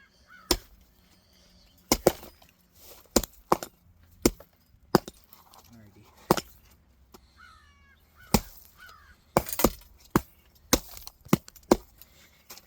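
Two axes chopping through logs: about a dozen sharp, irregular strikes of steel biting into wood, coming faster near the end as both choppers swing.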